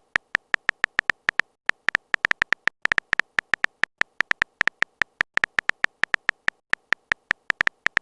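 A rapid, uneven train of short electronic blips, about eight a second with brief pauses, of the kind that plays as dialogue text scrolls onto the screen.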